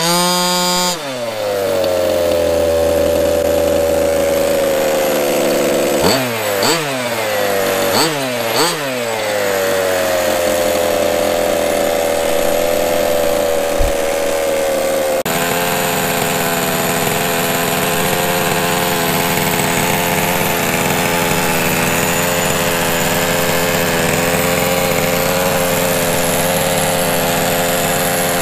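Losi MTXL's small gas two-stroke engine revving once, settling to a steady running note, then blipped four times in quick succession and holding steady again. About halfway through the sound cuts abruptly to a different steady engine note.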